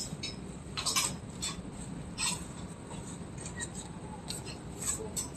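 Quiet room tone with a few faint, brief rustles and ticks scattered through it.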